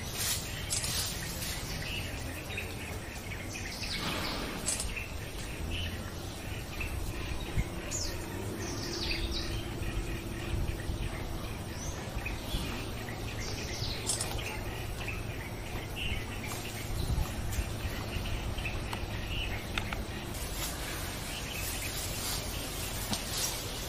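Wild birds chirping and calling on and off over a steady outdoor background hiss.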